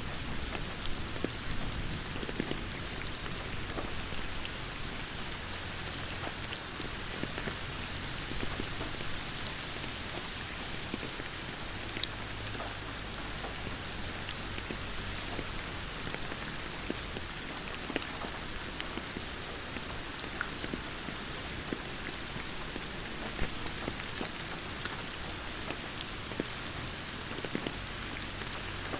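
Steady rain falling, a continuous hiss with many scattered sharp ticks of individual drops striking a surface close by.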